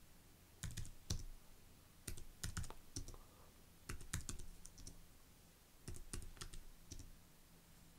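Computer keyboard being typed on in short bursts of a few keystrokes every second or two, as multi-digit numbers are keyed in one after another, each followed by Return.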